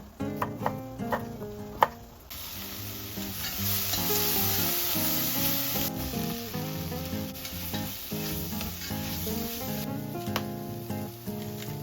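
Food sizzling in a hot pan, the hiss starting suddenly about two seconds in and easing somewhat near the end. A few sharp knocks, like a utensil on the pan, come just before it.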